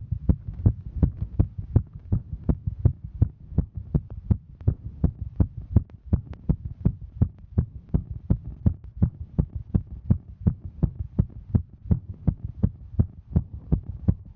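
A woman's heartbeat, a steady rhythm of quick thumps over a low hum, its pace raised by hiking.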